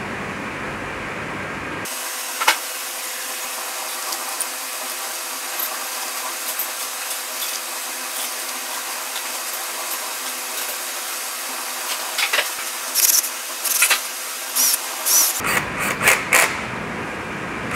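Hand work on engine parts during reassembly: rubbing and scraping with scattered clicks of metal parts and tools. There is a sharp knock about two and a half seconds in, and a busier run of clicks and knocks near the end.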